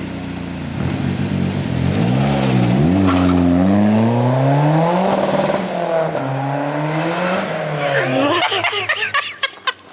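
Turbocharged Ford Focus four-cylinder Zetec engine pulling away hard under full throttle. The revs climb, dip briefly at a gear change about two and a half seconds in, and climb again; then the pitch falls and the engine fades away near the end.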